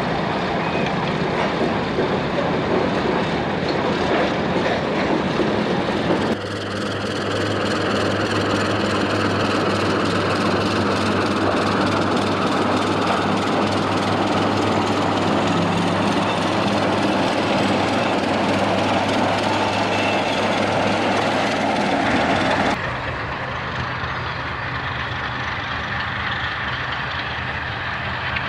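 Baldwin diesel switcher locomotive running under load as it pulls a freight train, a steady low engine drone with some rail noise. The sound changes abruptly twice, about six seconds in and again about three-quarters of the way through, where it becomes a little quieter.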